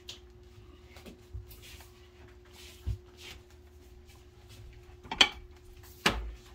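Dishes and cutlery being handled: scattered light clinks and knocks, a dull thump about halfway through, and two louder sharp clatters near the end, over a faint steady hum.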